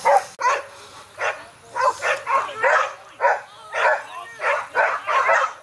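Dog barking over and over, short sharp barks about two a second.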